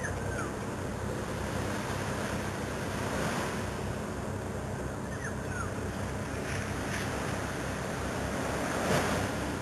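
Small waves washing on a sandy beach, a steady wash of surf mixed with wind on the microphone. A few faint short chirps that fall in pitch sound over it.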